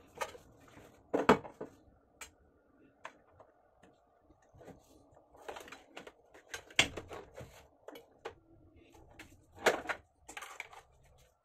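Scattered clicks, taps and knocks as a soundbar and its power cable and plug are handled and shifted on a countertop, the loudest knocks about a second in, near the middle and near the end.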